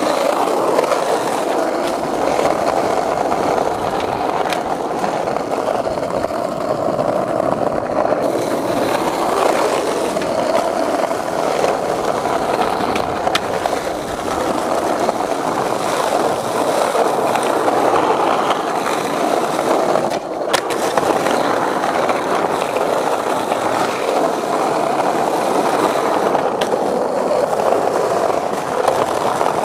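Skateboard wheels rolling steadily over rough asphalt, a continuous roar, with a few sharp clacks of the board here and there.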